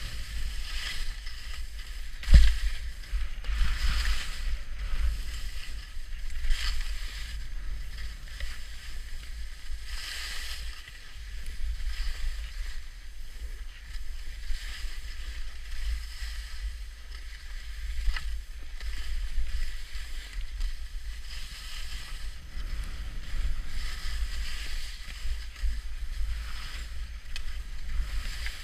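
Skis scraping and carving through packed snow in repeated turns, a swish every second or two, over a low rumble of wind on the microphone. A sharp thump about two seconds in, as the skis hit a mogul.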